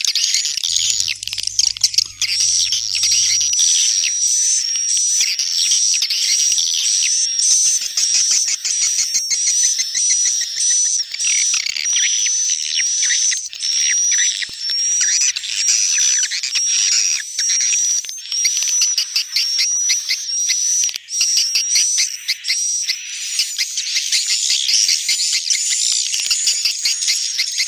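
Swiftlet lure call (suara panggil walet): a dense, continuous chatter of edible-nest swiftlet chirps, with a high twittering note repeating steadily over it. It is the kind of track played at swiftlet houses to draw the birds in to roost and nest.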